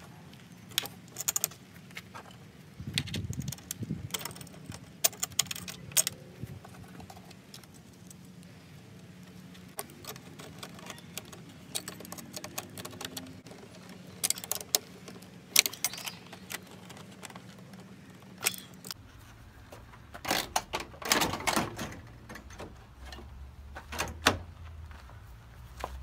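Scattered clicks, clinks and knocks of metal bracket hardware and a chrome trumpet air horn being handled and bolted onto a plastic truck grille, with a denser run of clinks near the end.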